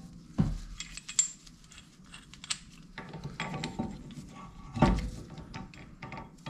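Metal tool parts clinking and knocking as a brake piston windback tool, with its adapter plate, is fitted into a rear brake caliper. There are scattered sharp clicks, and the loudest knock comes about five seconds in.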